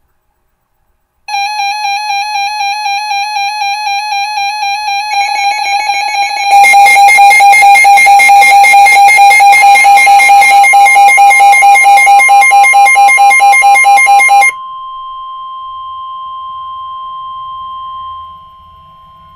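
Warbling electronic tones, several pitches layered, that swell louder twice and then cut off suddenly. Then a single steady, high NOAA Weather Radio warning alarm tone (1050 Hz) sounds for about five seconds, the signal that a warning broadcast follows.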